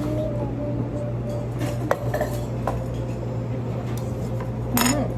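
Cutlery clinking against dishes while eating: a few light clinks, then a louder clatter near the end, over a steady low room hum.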